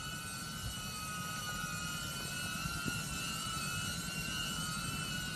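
DJI Avata FPV drone's ducted propellers whining in flight, several close tones held at a steady pitch.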